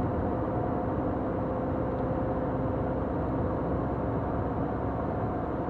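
Car driving at a steady speed, heard from inside the cabin: even engine and tyre-on-road noise with a faint steady hum.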